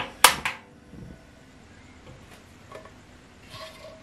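Portable butane cassette stove being lit: two sharp clicks of the piezo igniter as the knob is turned, about a quarter second apart, and the burner catches.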